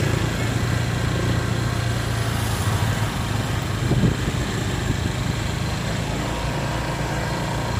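A vehicle's engine running steadily while under way, with a continuous low hum mixed with wind and road noise.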